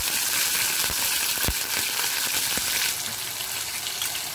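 Sliced green chillies sizzling in hot oil with cumin seeds and crushed red chilli in a frying pan, a steady hiss with a few faint knocks in the first half. The hiss eases a little about three seconds in.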